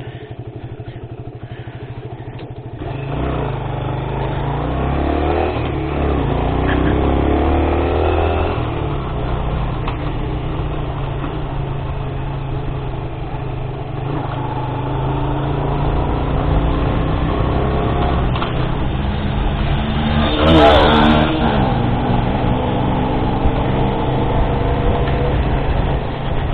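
Motorcycle engine through its aftermarket exhaust, ticking over quietly for a few seconds, then pulling away and rising in pitch as it accelerates. It then runs steadily at riding speed under wind noise on the helmet-mounted mic, with a louder rising surge about twenty seconds in.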